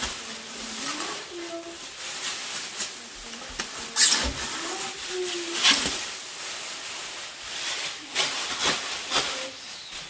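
Thin plastic wrapping bag crinkling and rustling as it is pulled and bunched off an espresso machine, with sharp loud crackles about four seconds in and again near six seconds.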